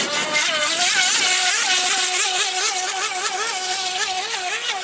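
Small model boat's motor running with a high whine whose pitch wavers up and down about three times a second.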